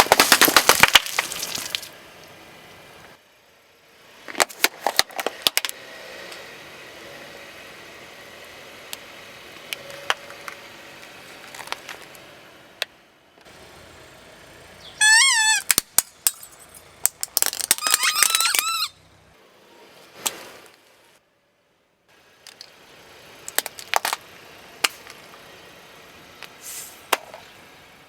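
Things crushed under a car tyre: several separate bursts of cracking and crunching, each a quick run of sharp snaps. About halfway through there is a short wavering squeak.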